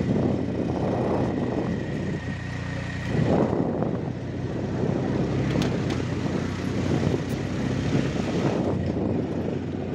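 A motor vehicle's engine running steadily as it drives along an unpaved dirt road, with a rough rumble from the road surface.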